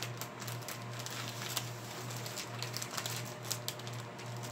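Paper and plastic packaging being handled, with rustling and scattered light ticks and taps, over a steady low hum.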